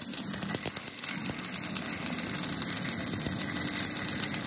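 Stick welding arc on steel: a steady, dense crackle as the electrode burns along the joint between a round steel spacer and plate.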